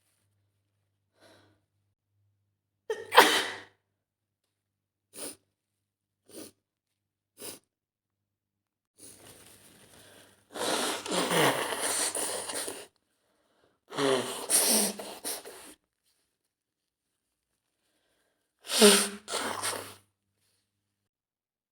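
A woman sneezing several times over, the loud sneezes spaced a few seconds apart, with short quiet sniffles between them.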